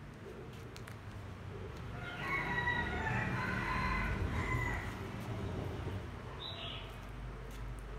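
A rooster crowing once, a long call of several held notes starting about two seconds in. A small bird gives a short, high chirp near the end.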